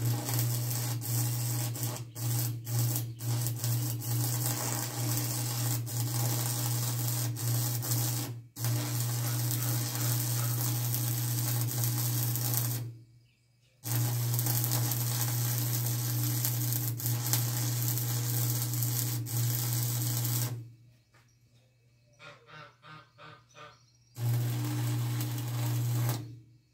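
Electric arc welding: a steady buzz with a crackling hiss, in welds of several seconds that start and stop abruptly, with a quick run of short bursts near the end.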